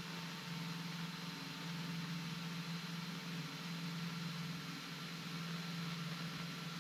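Beechcraft 35-B33 Debonair's six-cylinder piston engine and propeller droning steadily at climb power, heard inside the cabin with an even hiss over it.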